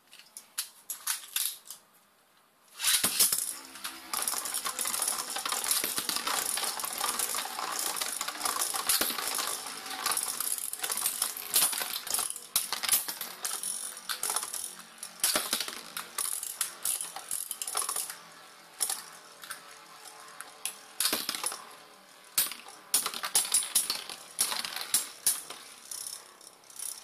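Metal-and-plastic Beyblade spinning tops, a Diablo Nemesis X:D against four mini Beyblades, rattling and clacking against each other and the walls of a clear plastic stadium. A few sharp clicks come first; the tops go in about three seconds in, and a dense, steady clatter follows. In the last third it thins to scattered clicks and knocks as the mini Beyblades slow and fall over.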